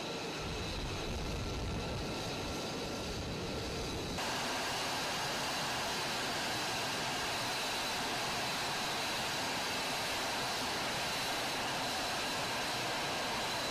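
Lockheed Martin F-35 Lightning II's F135 turbofan running on the ground as the jet taxis: a steady jet rush with a thin high whine. About four seconds in the sound changes abruptly and becomes louder and brighter.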